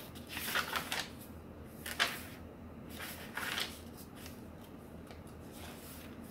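Paper pages of a handmade journal being turned by hand, eco-dyed card-weight sheets rustling and swishing. Several turns in the first few seconds, then quieter handling near the end.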